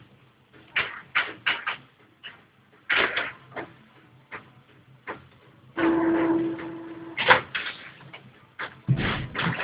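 Epson 1410 inkjet printer mechanism working: a series of sharp clicks and clacks, with a steady motor whine lasting over a second about six seconds in, then more knocks near the end.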